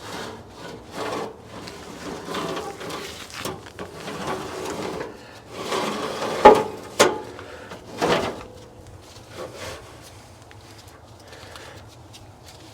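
Whole turkeys being flipped and moved around on an offset smoker's cooking grate: scraping and handling noise with several sharp knocks, the loudest about six and a half to eight seconds in.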